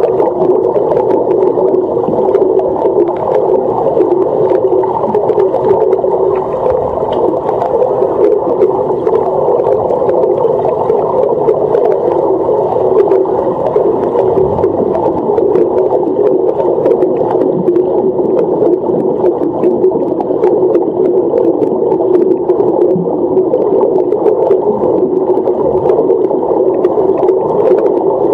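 Underwater sound in a swimming pool picked up by a submerged camera: a steady, muffled rushing hum that runs on without a break.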